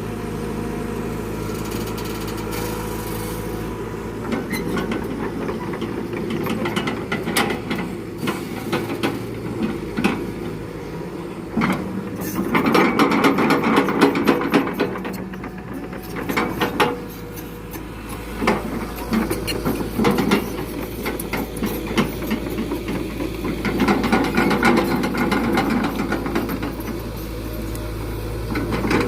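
Excavator engine running steadily while rubberwood logs knock and clatter against each other as they are handled, with louder spells of knocking about twelve seconds in and again near twenty-four seconds.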